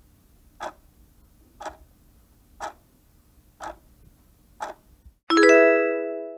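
Countdown timer sound effect: a clock ticks once a second, five times, then a bright chime with several tones sounds about five seconds in and rings out, marking the count reaching zero.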